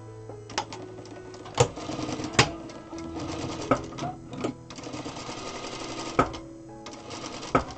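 Zoje ZJ9703AR industrial lockstitch sewing machine stitching, running in a stretch from about two seconds in to about six seconds in, with several sharp clicks, over background music.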